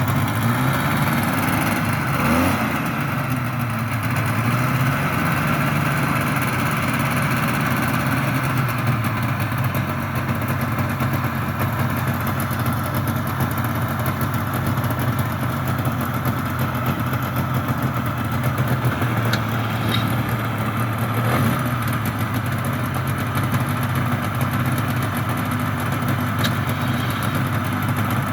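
Hovercraft engines running steadily at idle, a constant drone whose pitch wavers briefly a few seconds in.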